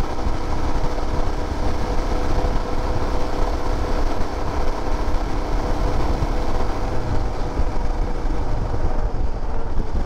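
Royal Enfield Himalayan's 411 cc single-cylinder engine running steadily while the motorcycle cruises at highway speed, with a low rumble and a constant rush of wind and road noise on the on-bike microphone.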